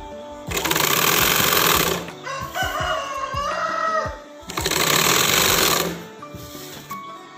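Sewing machine running in two bursts of about a second and a half each, stitching piping onto a chudithar neckline. Between the bursts a rooster crows once.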